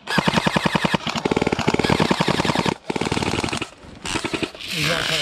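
Airsoft rifle firing on full auto: a rapid, even stream of shots in two long bursts, the first about two and a half seconds long and the second shorter, ending about three and a half seconds in.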